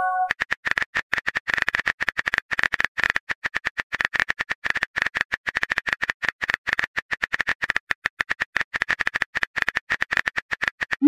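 Rapid on-screen phone keyboard typing clicks, a steady stream of small taps at about ten a second as a chat message is typed out. It opens on the tail of a short chime.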